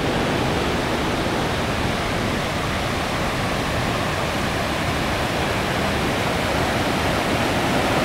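Mountain waterfall cascading down granite boulders into pools, a steady, even rush of falling water.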